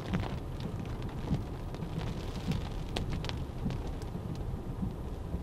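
Rain during a hurricane: a steady low rumble with scattered drops ticking and tapping throughout.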